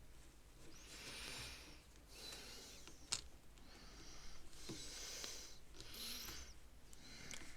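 LEGO pieces being handled during a build: irregular rustling of small plastic parts, with one sharp click about three seconds in.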